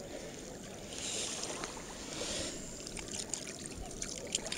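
Fishing groundbait being mixed by hand in a container: two short pours about a second apart, then a run of small crackles and clicks as the mix is stirred and worked.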